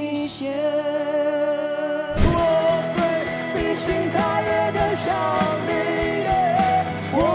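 Live pop-rock concert music: a held sung note closes one song, then about two seconds in it cuts abruptly to another song with a full band, drums keeping a steady beat and electric guitar under a woman's and a man's singing.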